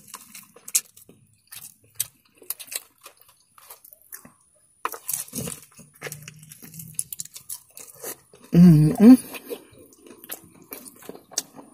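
Close-up chewing and biting of fried chicken: irregular crunching and smacking mouth sounds, with a short hummed vocal sound from the eater about nine seconds in, the loudest moment.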